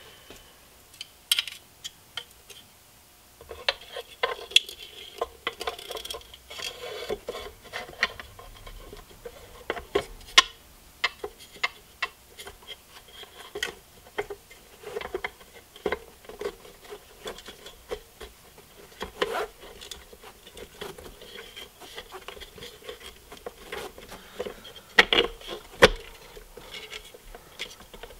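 Hands fitting a plastic projector mounting bracket into a headlight housing: irregular clicks, taps and rubbing of hard plastic parts, with a few louder knocks about ten seconds in and near the end.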